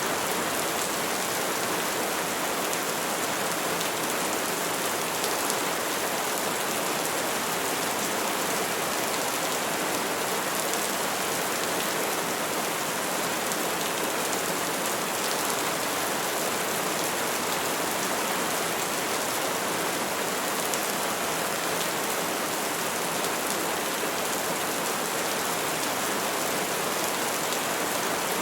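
Steady rain falling on trees, an even hiss with faint scattered drop ticks.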